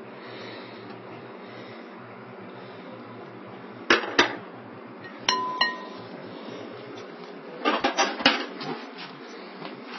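Metal kitchenware knocking and clinking on a cooking pot of dumplings: two sharp knocks about four seconds in, a short ringing clink a second later, and a quick cluster of clinks around eight seconds, over a steady low hiss.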